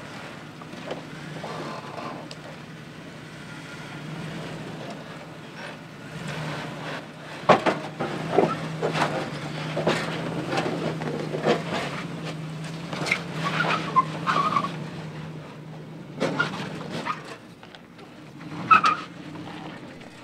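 Lexus GX470's 4.7-litre V8 engine running at a steady low crawl under light throttle while its tyres work over slickrock, with crunching and scraping over rock and grit that gets busier in the second half and a few short tyre squeaks on the stone.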